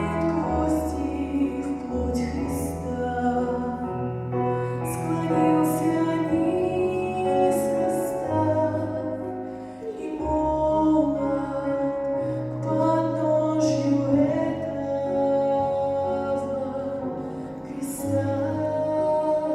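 A slow song: sung melody over instrumental accompaniment with long held bass notes.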